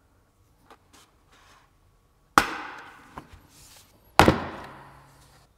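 Plastic retaining tabs on the back cover of a Honda Civic Type R FL5 OEM steering wheel being pried free with a plastic trim tool: a few faint clicks, then two loud sharp snaps about two seconds apart as the tabs let go.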